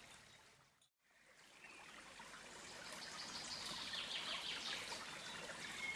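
Faint outdoor ambience that fades to a brief silence about a second in. A steady rush of flowing stream water then swells back up, with birds chirping over it.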